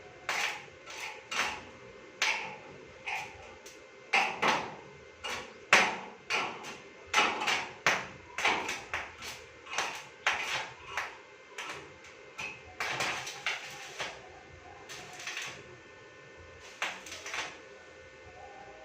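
Hammer blows struck one after another at an uneven pace, some in quick runs and others with short pauses between, stopping shortly before the end.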